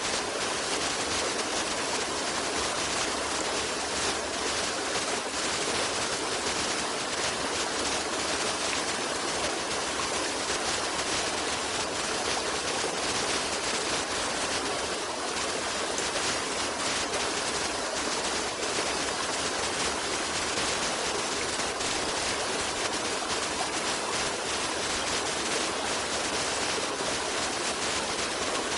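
Running water, such as a stream, rushing steadily with no breaks or changes.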